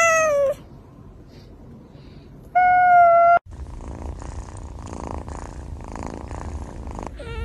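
Domestic cat meowing: the falling end of one meow at the start, then a second, level meow about two and a half seconds in. After a cut, a cat purring steadily, with a short meow starting near the end.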